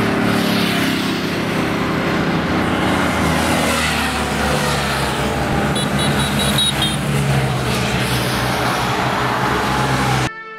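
Motorcycle engines running steadily as the bikes ride along a highway, with road noise. A short run of high beeps comes about six seconds in.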